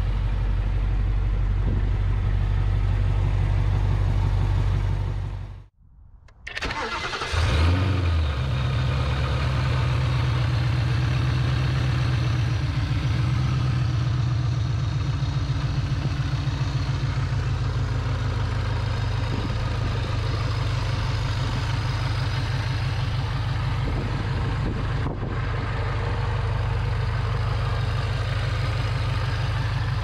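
Supercharged V8 of a Roush JackHammer Mustang, with long-tube headers and no catalytic converters, cranking and firing up about six seconds in after a short silence. It catches with a brief rise in revs, then settles into a steady idle.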